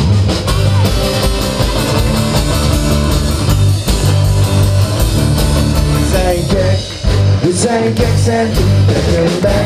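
Live rock-and-roll band playing loudly: electric and acoustic guitars, bass and drum kit with a small accordion, in an instrumental stretch between verses, a lead melody line moving over the steady bass in the second half.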